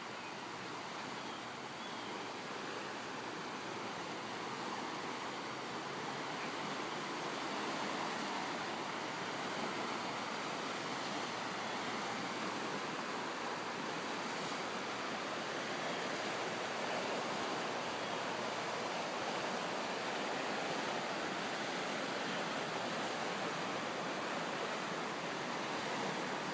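A swift river running strong, a steady rush of water that grows louder over the first several seconds and then holds.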